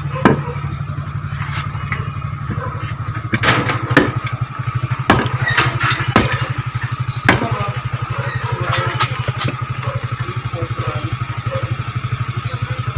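An engine idling steadily, with sharp clicks and knocks of metal parts being handled scattered over it.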